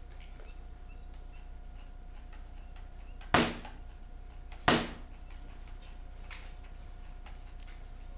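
Two airsoft gun shots, a second and a half apart, each a sharp crack with a short tail.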